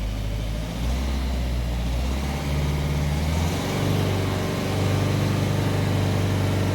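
Ford Focus four-cylinder diesel engine running at low revs, around one and a half thousand RPM, with a slight misfire. The misfire persists after two new injectors were fitted. The engine note steps up a little about halfway through as the revs rise.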